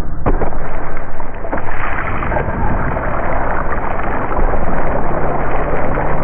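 Food sizzling in a hot frying pan: a dense, crackling hiss with a low rumble under it. It sets in suddenly just after the start and keeps going.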